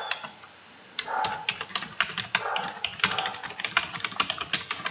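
Typing on a computer keyboard: after a brief pause, a quick, irregular run of key clicks begins about a second in, as a line of text is typed.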